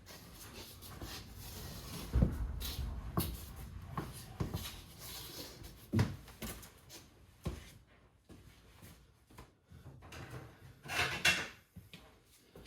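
Irregular metal clunks and clinks from working a C-clip loose inside an open Chrysler 8.25 differential, with a few sharp knocks spread through and a brief scrape a little before the end.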